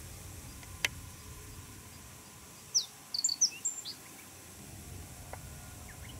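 Male Japanese reed bunting singing one short phrase of quick, high notes, starting a little under three seconds in and lasting about a second. A single sharp click sounds about a second in.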